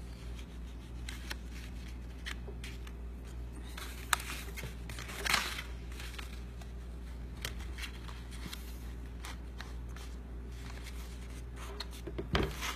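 Cardstock paper petals rustling and scraping as fingers press them down onto hot glue, with scattered light clicks and taps, one sharper click about four seconds in. A steady low hum runs underneath.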